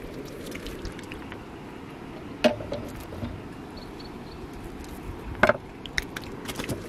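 A small hooked fish is lifted from the water on the line and grabbed by hand, with a few sharp knocks and clicks: one about two and a half seconds in, a louder cluster around five and a half seconds. Steady wind and water noise lies underneath.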